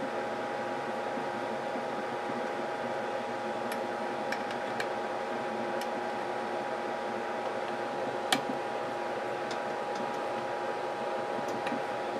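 A handful of light metal clicks from an Allen key tightening the build-plate screws of a Kelant Combat S500 resin 3D printer, the sharpest about eight seconds in, over a steady fan-like hum with two steady tones.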